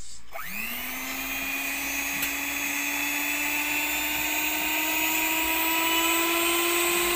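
Scarlett electric hand mixer running with its beaters spinning in the air: the motor starts just after the beginning and its whine climbs quickly in pitch as it spins up, then keeps creeping slowly higher.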